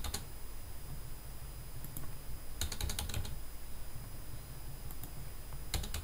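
Computer keyboard typing: short bursts of quick keystrokes, one run about two and a half seconds in and another near the end, as code is edited.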